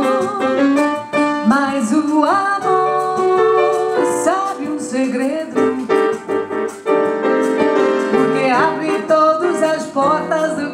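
Bossa nova played on piano, with a woman's voice singing over the chords.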